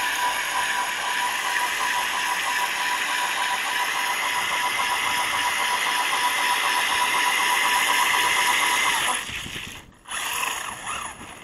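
Small electric motor whining at a steady pitch over a loud hiss of running noise, then cutting off sharply about nine seconds in. A short burst of noise follows.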